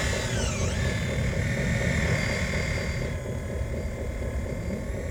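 Hydraulic drive of a radio-controlled model Caterpillar excavator whining as it swings and lowers the boom and bucket, the pitch dipping briefly and recovering about half a second in. The higher whine drops away about three seconds in, leaving a low rumble.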